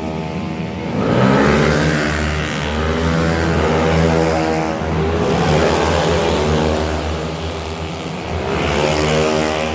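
Several tuned 130cc automatic scooter engines revving hard in a race, overlapping notes sweeping up and down in pitch, getting louder about a second in.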